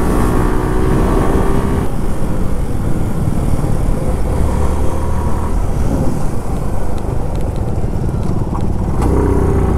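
Motorcycle ridden at road speed: its engine runs under a heavy rumble of wind and road noise. The steady engine note fades back about two seconds in and comes up again near the end.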